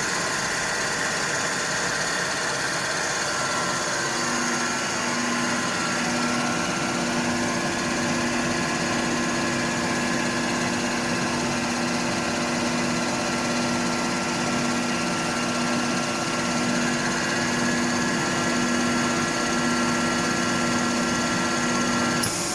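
5.5 kW Alup rotary screw air compressor running steadily under load, building receiver pressure toward its 10 bar cut-out. Its sound changes abruptly near the end.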